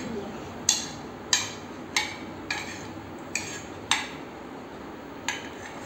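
A metal spoon stirring cut okra in a metal frying pan, clinking against the pan about seven times at irregular intervals of roughly half a second to a second.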